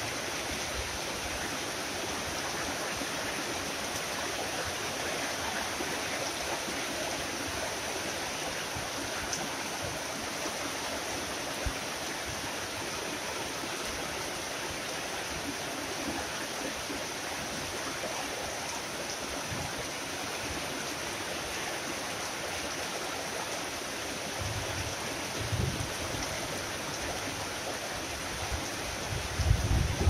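Tropical rain falling steadily, an even hiss of drops, with a few low rumbles coming in near the end.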